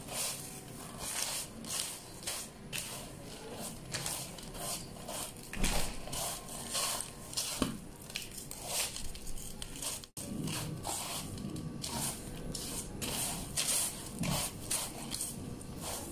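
Hands mixing a dry, crispy fried snack mix of sev, fried lentils and cashews on newspaper: the pieces and the paper rustle and crackle in uneven strokes, about once or twice a second.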